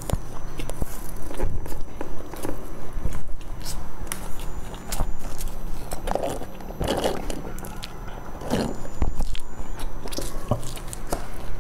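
Close-miked biting and chewing of a pan-fried, sesame-topped flatbread stuffed with greens: many short crunchy, crackly bites and mouth sounds. A denser stretch of sound about halfway through comes as the eater sips a drink through a straw.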